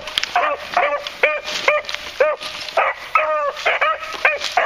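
Beagles baying in short yelps that rise and fall in pitch, about three a second, with voices overlapping: hounds giving tongue while running a scent trail.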